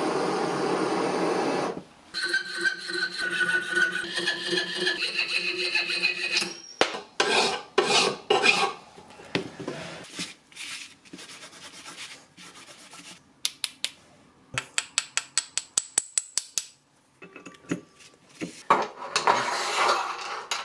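Hand filing and rubbing of a small brass part: runs of rasping strokes, one of them quick and even at about eight strokes a second. It opens with a steady gas-torch hiss that cuts off about two seconds in.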